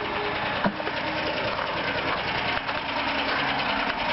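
A small engine running steadily, with one sharp click about two-thirds of a second in.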